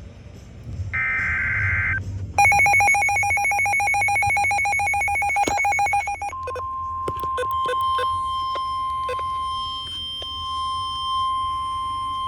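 Emergency alert signal from NOAA Weather Radio. The last burst of the warbling SAME digital header comes about a second in. A rapid, ringing electronic alarm then pulses for about four seconds, and after that the steady 1050 Hz weather-radio alert tone sounds to the end, with a few clicks near its start. This is the alert that comes before a severe thunderstorm warning is broadcast.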